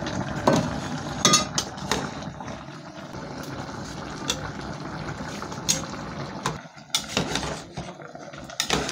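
A pot of water and pork boiling steadily, with scattered clinks and knocks of a metal ladle against the metal pot as the contents are stirred.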